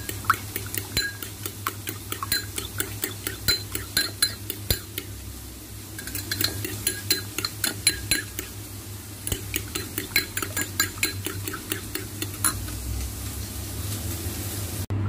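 Metal fork beating raw eggs in a ceramic bowl: quick runs of clinks as the tines strike the bowl's sides, with a brief lull about six seconds in and fewer strokes near the end. A steady low hum lies underneath.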